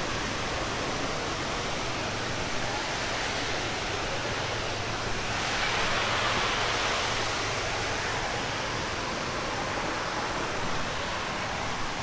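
Steady rush of a waterfall, an even hiss of falling water that swells a little about halfway through.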